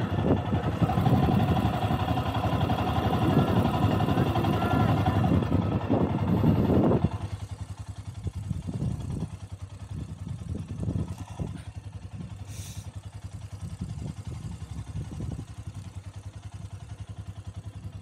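Motorcycle engine running at a standstill, louder for about the first seven seconds, then dropping back to a quieter idle.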